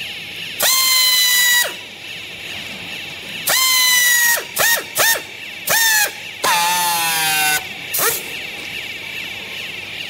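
Handheld strapping tool's motor whining in about seven short bursts, each winding up and falling away, as it tensions and seals plastic strap around a bale. The longest burst, a little past the middle, runs at a lower pitch.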